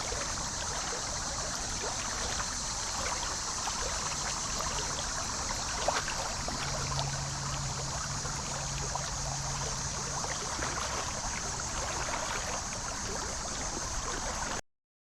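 Creek water running and trickling over rocks, an even wash of flowing water. A faint low hum sits under it for several seconds in the middle, and the sound cuts off suddenly near the end.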